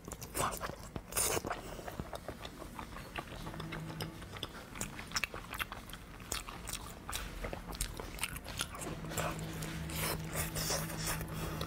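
Close-miked biting and chewing of braised beef tendon, a dense run of wet, sticky clicks and smacks of the mouth.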